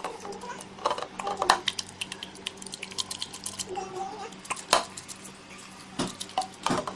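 Utensil clinking and scraping against a plate in an irregular run of quick taps and knocks.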